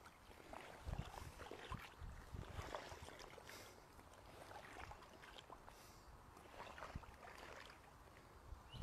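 Faint sloshing and swishing of shallow pond water with soft, irregular thuds, as a person wades through it in chest waders.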